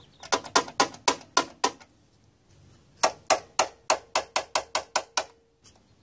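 An automatic center punch snapping repeatedly against the car's sheet-metal panel, dimpling spot welds so a drill bit will not wander. The sharp clicks come about four a second in two runs, with a pause of about a second between them.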